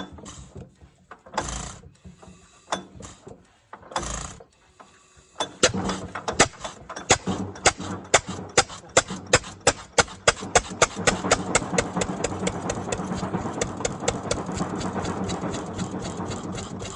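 1929 Fairbanks Morse 7-1/2 hp engine being started: a couple of loud bursts and scattered clicks, then about five seconds in it catches and fires, its separate beats quickening and running together into a steady run.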